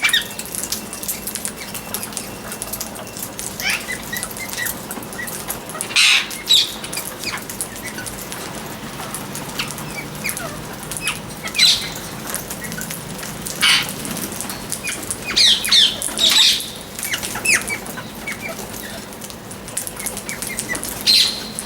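Parrot chirping: a steady scatter of short, quick high chirps, with louder squawk-like calls now and then, several bunched together about two-thirds of the way in.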